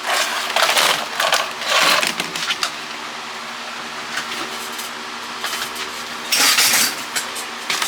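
Crinkly rustling and handling noise as old plastic cordless phones are picked up and moved, in three bursts: at the start, around two seconds in, and near the end, with small clicks between them over a faint steady hum.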